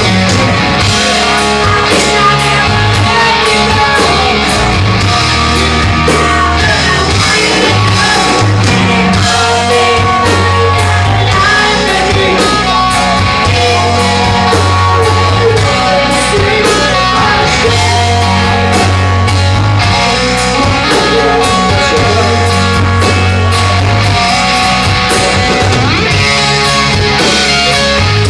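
Live hard rock band playing loud: electric guitars, bass and drums, with a singer.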